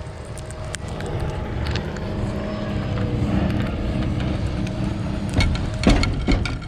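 A motor vehicle's low engine rumble, growing louder, with a few sharp clicks and knocks near the end.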